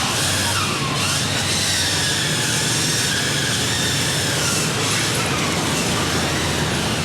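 A vehicle passing on the street, with a high whine over a hiss. The whine dips about a second in, then rises and holds before fading near the end.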